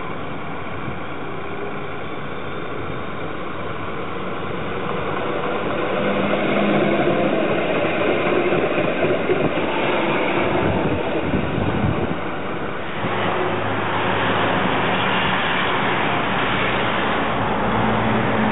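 A low-floor electric tram approaches and passes close by, its running noise growing louder and peaking as it goes past, with a few brief knocks from the wheels on the rails. About 13 seconds in, the sound cuts to a second tram approaching over steady traffic hum.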